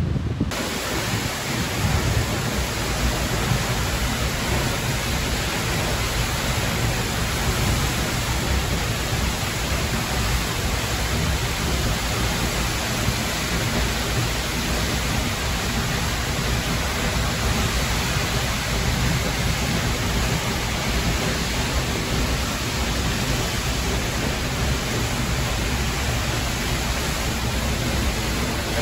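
Steady roar of Seljalandsfoss waterfall, heard from close behind its falling curtain of water, a heavy rush with a deep rumble underneath.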